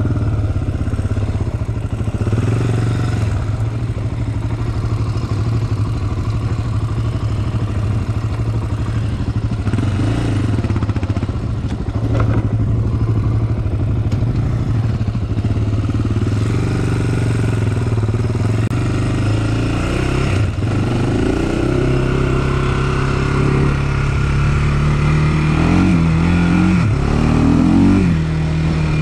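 Honda 400 sport quad's single-cylinder four-stroke engine running at a steady trail pace; its revs rise and fall a few times near the end.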